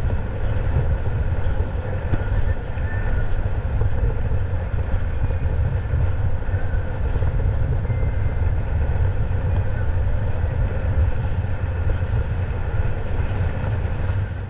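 Boat under way: a steady low engine drone mixed with wind and water noise.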